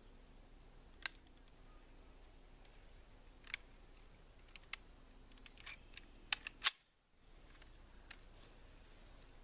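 Scattered faint clicks and knocks, with a quick cluster of sharper clicks about six seconds in, the loudest at the end of the cluster, followed by a brief dip to near silence.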